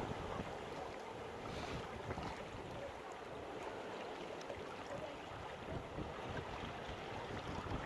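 Sea surf washing at high tide: a steady wash of waves with no distinct breaks, and some wind on the microphone.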